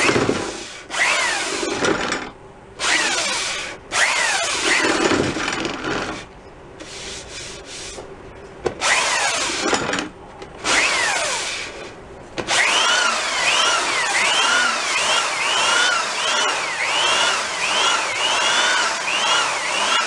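Makita belt sander sanding a wooden snare drum shell. It is switched on in short bursts, its motor whining down after each, to keep it from cutting constantly. Past the middle it runs continuously, its pitch rising and falling about every two-thirds of a second.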